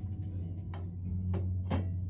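Soft instrumental background music with steady low sustained notes. Three light knocks come about half a second apart, starting a little under a second in.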